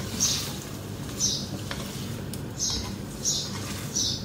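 A slotted wooden spatula stirring chicken pieces and chopped tomatoes in a metal karahi: a short scraping swish against the pan with each stroke, five strokes at an even pace.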